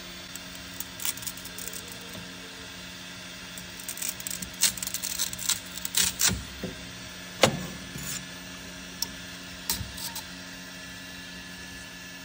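Plastic clicks and knocks as a plastic part is handled and fitted inside a 3D printer's chamber. The clicks cluster in the middle, with one louder knock just after halfway and a few lighter ones later. A steady low hum runs underneath.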